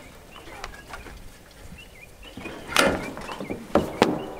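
Green ratchet strap thrown over a large black plastic water tank, the webbing swishing and slapping onto the tank with two sharp knocks near the end. Faint bird chirps throughout.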